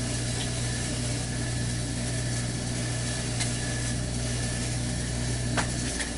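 A motor running steadily, a constant low hum under an even hiss, with a sharp click near the end and the motor shutting off just before it ends.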